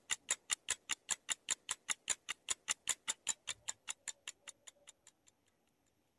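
Countdown-timer ticking: a clock sound effect ticking quickly and evenly, about five ticks a second. It grows fainter and dies out about five seconds in.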